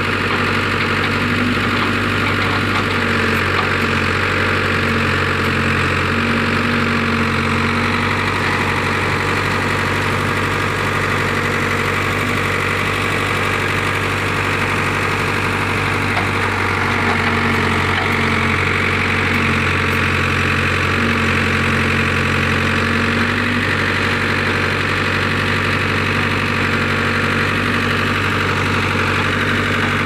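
Tractor-loader backhoe's diesel engine running steadily at an even speed.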